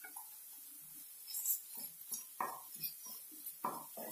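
Wooden spatula scraping and stirring ginger-garlic paste into frying onion paste in a kadai, in a few short separate strokes that begin about a second in.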